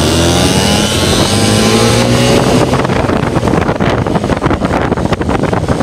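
1976 DS50 moped's small two-stroke engine revving up as it pulls away under load, its pitch rising over the first two or three seconds. After that, wind buffets the microphone and covers the engine.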